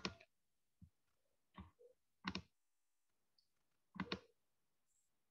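Faint clicking at a computer while screen sharing is set up: a handful of short, separate clicks at irregular intervals, some of them doubled.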